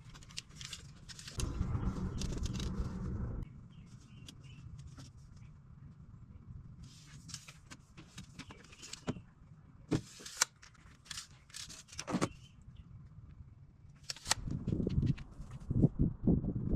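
Scattered light clicks and knocks, with a brief rush of noise about a second and a half in and heavier low thuds near the end.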